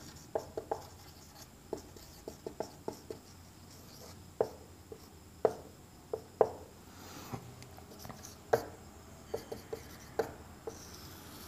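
Marker writing on a whiteboard: quiet, irregular taps and short strokes as letters and symbols are written.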